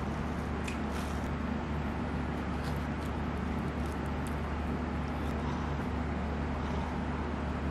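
Steady low hum and rumble of background noise, with a few faint clicks.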